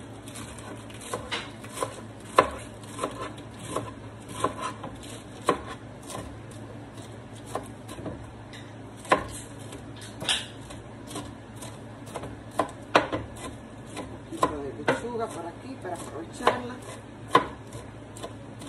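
Knife chopping iceberg lettuce on a plastic cutting board: irregular sharp knocks of the blade hitting the board, some much louder than others, with the soft crunch of the leaves.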